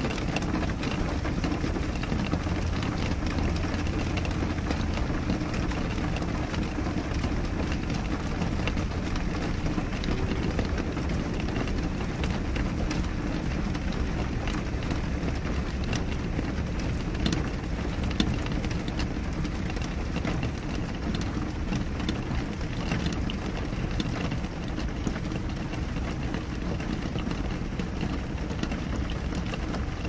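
Steady rain on a window pane: an even rush with a low rumble underneath and many scattered sharp taps of individual drops.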